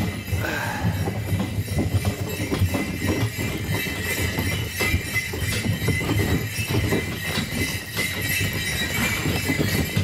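Sleigh bells jingling on a horse-drawn sleigh in motion, with a horse's hoofbeats on packed snow over a steady low rumble of the ride.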